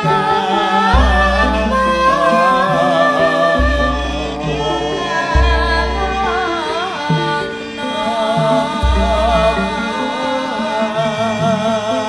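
A female Javanese singer (pesindhen) sings a slow, ornamented melody with a wavering pitch into a microphone, over gamelan (karawitan) accompaniment with steady ringing tones and deep low notes sounding four times.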